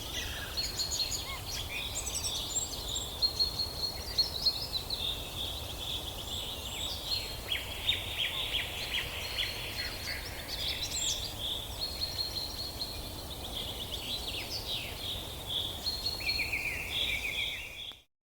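Many small birds singing and chirping at once, with quick trills and repeated notes over a low steady rumble. The sound cuts off suddenly near the end.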